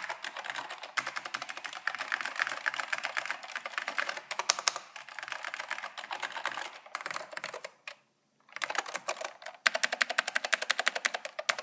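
Typing on a NeXT non-ADB keyboard: a rapid, steady stream of key clicks. There is a brief pause a little past the middle, and then the typing resumes faster.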